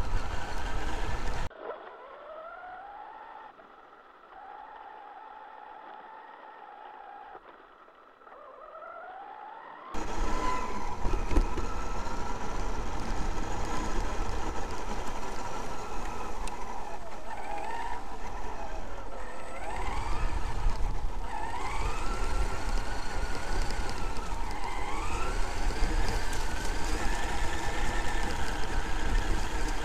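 Traxxas X-Maxx RC monster truck's brushless electric motor and drivetrain whining, the pitch rising and falling with the throttle, over the rumble of the tyres through grass, heard from the truck's onboard camera. From about a second and a half in until about ten seconds, the sound drops to a quieter, duller whine, then the full noise comes back.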